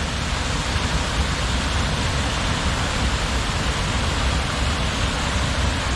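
Waterfall rushing, a steady, even noise of falling water with a heavy low rumble.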